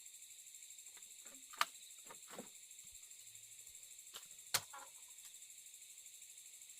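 Night insects chirring in a steady, high, finely pulsing drone, broken by two sharp clicks, one about one and a half seconds in and one about four and a half seconds in, with a few fainter ticks between.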